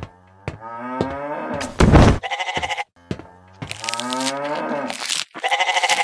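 Cow mooing and sheep bleating, dubbed on as sound effects: two long calls, the first about half a second in and the second about three and a half seconds in, each ending in a quick quavering bleat.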